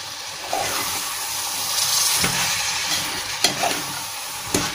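Soaked chickpeas being stirred with a metal spoon into sizzling masala and oil in a pressure cooker: a steady sizzle, with the spoon knocking against the pot a few times.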